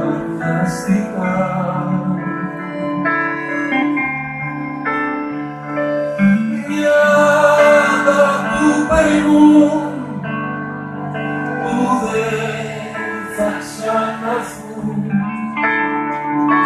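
Live band music with keyboard and guitar, and a voice singing over it.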